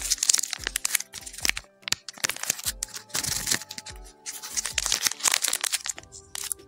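Thin white wrapper crinkling and tearing as it is pulled open by hand, in quick dense crackles that die away about six seconds in. Soft background music plays underneath.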